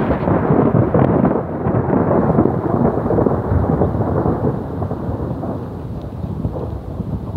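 Thunder rumbling: a loud peal that begins suddenly, rolls on strongly for about three seconds, then slowly dies away.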